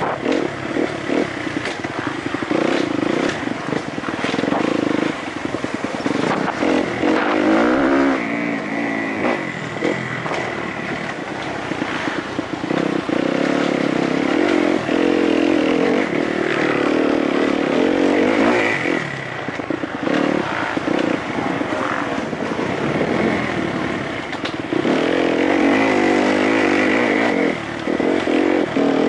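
Kawasaki KX-F four-stroke motocross bike heard from on board, ridden hard on a dirt track: the engine's revs rise and fall again and again with the throttle and gear changes. Short knocks and rattles from the bumpy ground run through it.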